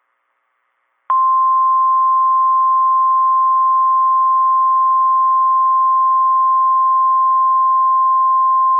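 NOAA Weather Radio warning alarm tone: one steady, loud 1050 Hz tone starting about a second in, over a faint hiss. It signals that a new warning is about to be broadcast.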